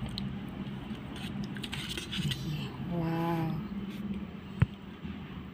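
A low steady hum, with a faint voice briefly about three seconds in and a single sharp click about four and a half seconds in.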